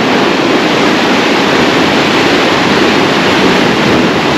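Heavy sea swell washing against the rocks: a loud, steady rush of surf.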